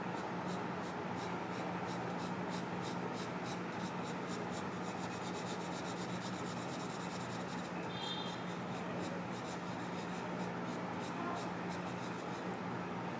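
Camlin charcoal pencil scratching on drawing paper in repeated back-and-forth shading strokes, about three a second, quickening for a couple of seconds past the middle. A steady low hum runs underneath.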